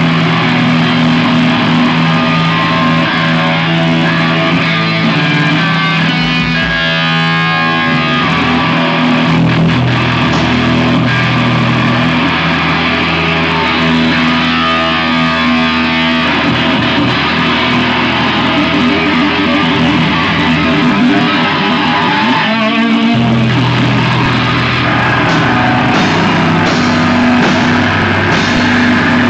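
Crust punk band playing loud live: electric guitar, bass guitar and drums in a fast, dense riff, with the chords changing every several seconds.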